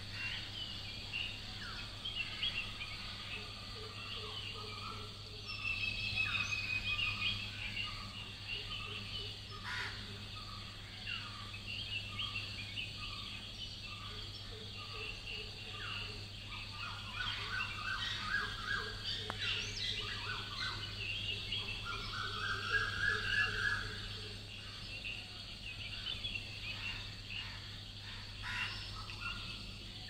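Dawn chorus of several birds calling at once: a regular series of single repeated notes, a short trill and fast runs of notes, over a steady high buzz of insects and a low steady hum.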